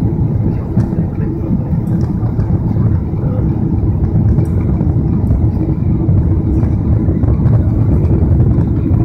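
Steady low roar of engine and airflow noise inside the cabin of a Boeing 777 airliner descending on approach with its flaps extended.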